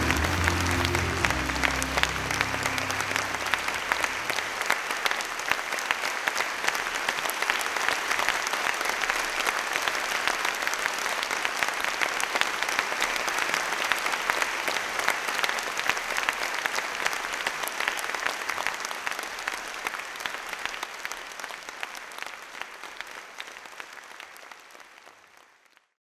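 Audience applauding during the curtain call, dense and steady clapping, with closing music dying away in the first few seconds. The applause fades out gradually near the end.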